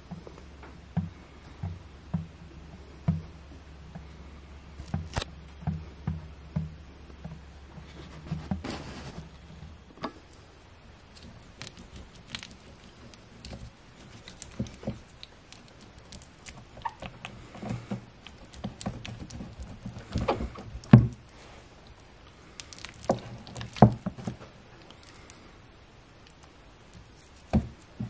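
An uncapping knife cutting and scraping wax cappings off a wooden frame of honeycomb: irregular clicks and scrapes with a few sharp knocks, loudest around the middle and later on. Before that comes a low steady hum with light ticks about every second, which cuts off about ten seconds in.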